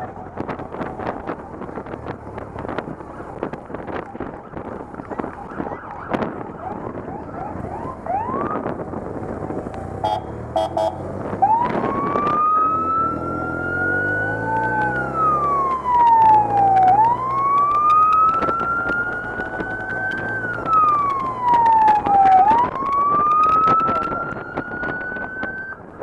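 Police motorcycle siren wailing, sliding slowly up and down in pitch over and over from about halfway in, after a brief chirp. Beneath it are the steady sound of motorcycle engines and a scatter of sharp clicks.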